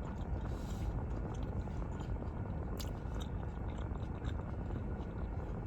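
Chewing a mouthful of chicken nachos, the tortilla chips crunching now and then, over a steady low rumble.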